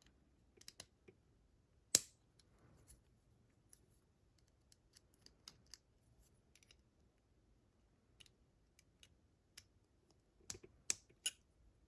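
Small metal tools clicking and scraping against the retaining clip of a Brinks padlock's core while prying at it: scattered light clicks, one sharp click about two seconds in, and a quick cluster of clicks near the end.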